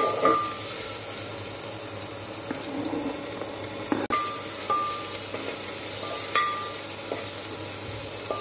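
Chopped onions sizzling as they fry in hot ghee in a steel pan, with a steady hiss. A steel spoon stirs them, clinking against the pan a few times, mostly near the start and between about four and six and a half seconds in.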